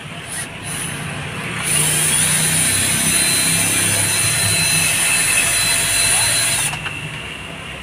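Cordless drill spinning up about two seconds in, running steadily with a high whine for about five seconds, then stopping.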